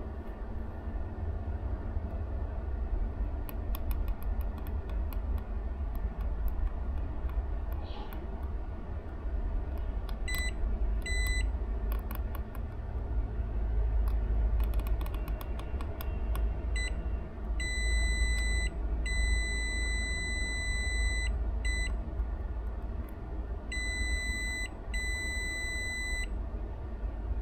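Digital multimeter's continuity beeper sounding as its probe tips touch pins and traces on an ECU circuit board: short chirps from about ten seconds in, then several longer beeps of one to two seconds in the second half, each one a closed connection on the meter. Light ticks of the probe tips in the first half, over a steady low rumble.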